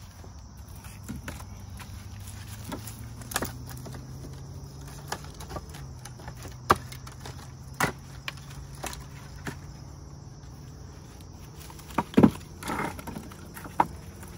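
Split firewood pieces knocking against each other as they are set one at a time into a wooden bundling rack: about ten irregular sharp wooden clunks, the loudest pair about twelve seconds in, over a steady low hum.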